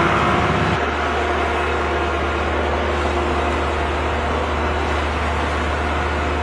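Excavator engine running at a steady speed: an even low drone with a faint steady whine above it.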